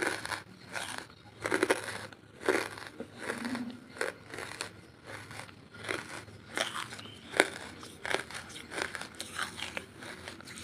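Hard, ash-coated wood charcoal being bitten and chewed: a run of sharp, uneven crunches, the loudest about seven seconds in.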